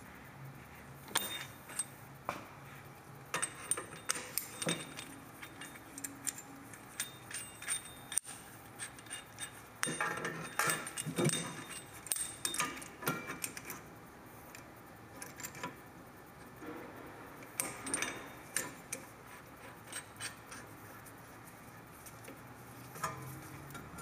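Brake caliper and pads clinking and rattling as the rear caliper is worked back into place over new brake pads. There are irregular sharp metal clicks in several bunches, with short gaps between.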